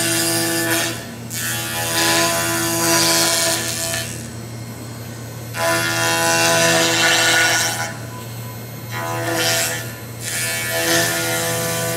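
5-axis CNC milling machine's spindle and cutter carving laminated katsura wood: a steady machine hum underneath, with loud cutting noise and a whine that swell and fade about five times, each pass lasting a second or two as the cutter works the surface.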